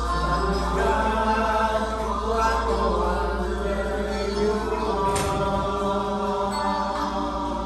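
Group of men singing together, holding long sustained notes.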